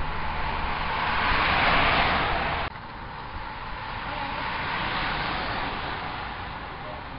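Outdoor road noise as racing cyclists ride past: a rushing sound that swells and fades, drops abruptly about two and a half seconds in, then swells and fades again.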